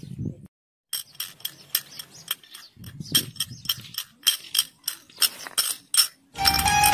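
Irregular series of sharp clinks and taps. Near the end a mobile phone ringtone starts playing.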